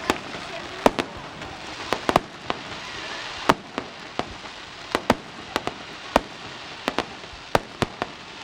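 Fireworks display: a quick, irregular run of sharp bangs from bursting aerial shells, about two a second, over a steady crackling hiss.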